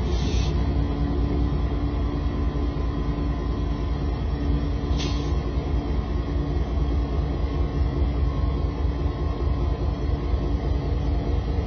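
Kansas City Southern diesel-electric locomotives rumbling as they roll slowly past, with a steady low engine drone. Two short hisses, one right at the start and one about five seconds in.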